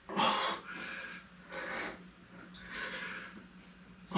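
A man breathing hard from exertion during crunches: three forceful, noisy breaths, each about half a second long and roughly a second and a half apart.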